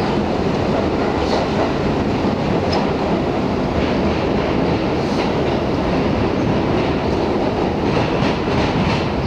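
R62A subway car running at speed through a tunnel: a steady, loud rumble of steel wheels on the rails, with occasional faint clicks from the track.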